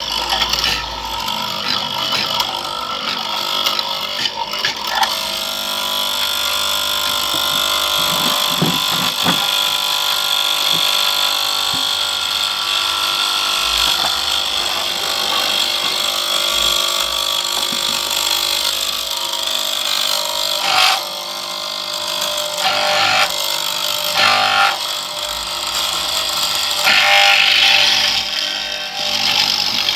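Electric wood chisel machine running and cutting into wood to hollow it out: a continuous, high-pitched mechanical buzz whose level rises and falls as the chisel bites, with a few brief dips and surges in the second half.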